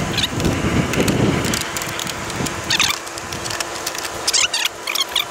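Plastic push-pin clips on a 2015 Dodge Charger's splash shield being pried out: a run of clicks, snaps and rustling, busiest in the first two seconds, then scattered sharp clicks and a few short high scrapes.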